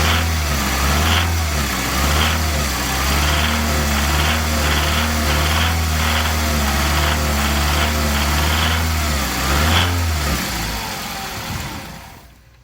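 Toyota 1AZ-FSE 2.0-litre four-cylinder engine running, blipped now and then, with a knock from the engine. It shuts off about ten seconds in.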